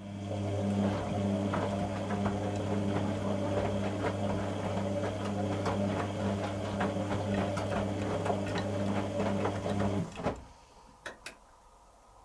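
Beko WTG620M1 washing machine running, with a steady fixed-pitch hum and light rattling for about ten seconds, then cutting off abruptly, followed by two short clicks.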